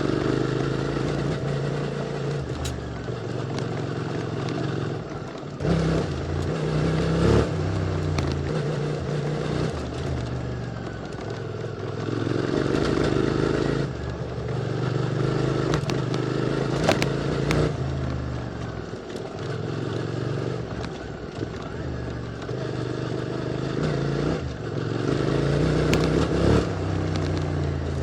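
QJ Motor SVT650X parallel-twin engine through an Arrow slip-on exhaust, running on and off the throttle so the revs repeatedly rise and fall. Occasional sharp clicks and clatter sound over it.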